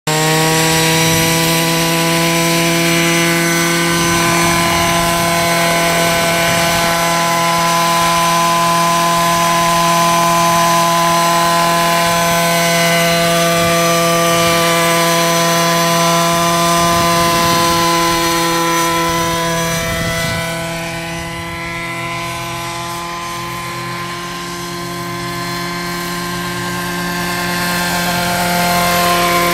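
Radio-controlled scale Bell 47 model helicopter running, its motor and main rotor giving one steady pitched drone as it lifts off and flies low. The sound fades somewhat about two thirds through as it moves away and grows again near the end.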